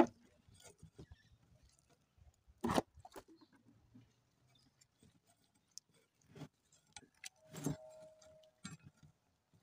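A few scattered metal clinks and knocks from a socket wrench on the bolts of a BMW M52 oil pump's pickup tube. One knock, a little past the middle, leaves a short metallic ring.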